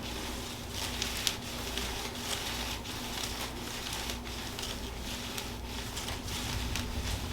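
Soft, irregular rustling and light ticking of hands and clothing shifting against the patient and the treatment table while the neck is held in traction, with one sharper tick about a second in, over a steady low room hum.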